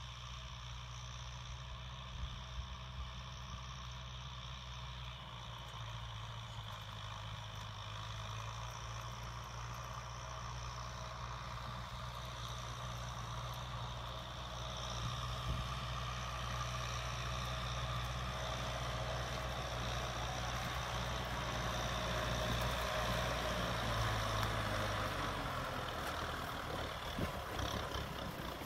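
Kubota M6040SU tractor's diesel engine running steadily under load while pulling a plough through dry soil. It grows gradually louder as the tractor approaches, and in the last few seconds, with the tractor close by, the steady engine note breaks up into rougher clattering.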